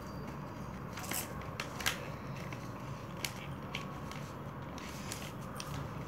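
A folded sheet of A4 paper being pressed and creased flat by hand: scattered short, crisp paper crackles and taps, a few of them sharper about one and two seconds in.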